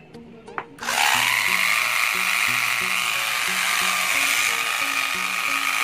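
Homemade PVC-pipe angle grinder switched on about a second in: its electric motor spins up with a rising whine, then runs steadily. Background music plays underneath.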